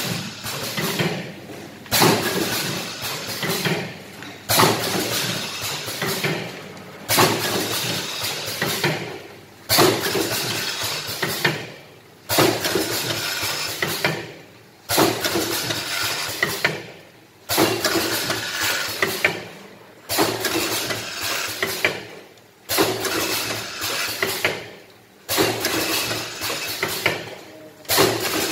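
Alcohol-pad sachet-making machine running in automatic cycles: about every two and a half seconds a sudden loud clack starts a stroke of mechanical clatter that fades over about two seconds, about eleven even cycles in a row.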